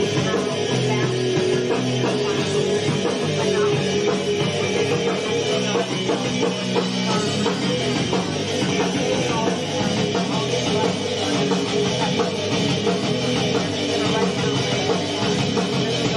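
Instrumental rock take of electric guitar, bass and drums, without vocals, from a band's studio recording session.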